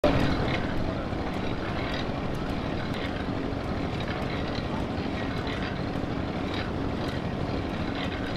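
Vintage portable steam engines running, one driving a water pump by a flat belt: a steady mechanical running noise with a faint hum and light regular clicks about twice a second.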